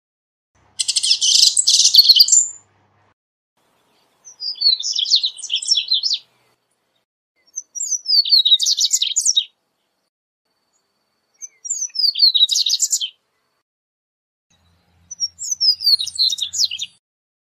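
Male double-collared seedeater (corbatita) singing: five short, high-pitched phrases of about two seconds each, separated by silent pauses. Most phrases open with a falling slurred note and run into quick, buzzy notes.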